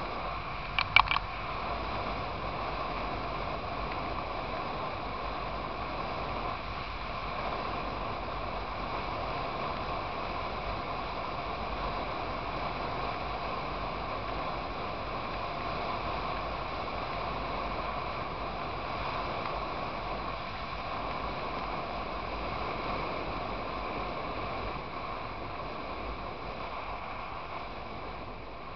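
Motorcycle cruising steadily at speed on an open road: a constant drone of engine, tyres and wind, with three quick sharp clicks about a second in.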